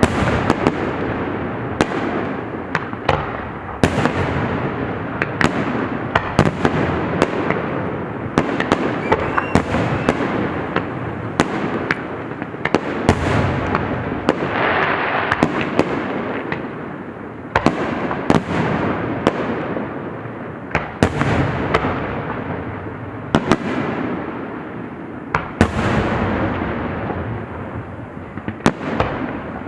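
Fireworks display: a dense run of sharp bangs from aerial shells bursting in quick succession, over continuous crackling.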